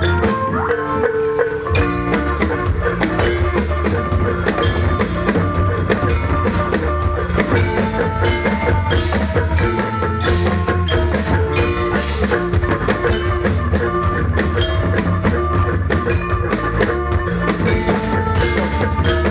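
Instrumental ensemble music led by tuned mallet percussion and drums, playing continuously with a steady, dense beat over a strong bass.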